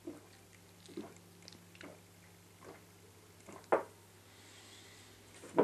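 A person gulping milk straight from a plastic milk jug, one swallow about every second, with louder gulps about three and a half seconds in and at the end.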